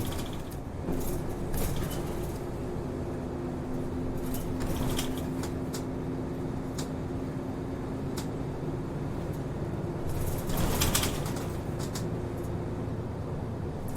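Route bus running, heard from inside the cabin: a steady engine and drivetrain hum with repeated rattles and clicks from the body and fittings. A short, louder hiss comes about ten and a half seconds in.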